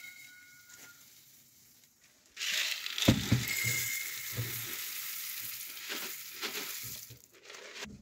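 Dry grain feed poured from a bowl into a rabbit hutch through its wire mesh: a steady rustling hiss that starts about two seconds in and lasts about five seconds, with a few dull knocks near its start.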